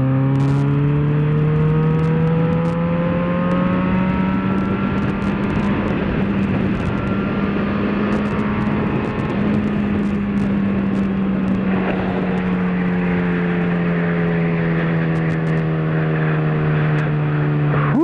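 Yamaha XJ6 motorcycle's inline-four engine running under way. Its pitch rises slowly over the first few seconds, holds, then eases down a little toward the end, over a steady rush of wind and road noise.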